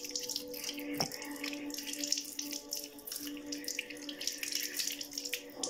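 Water running from a tap and splashing in a sink as someone washes, with a steady low hum beneath and a single click about a second in.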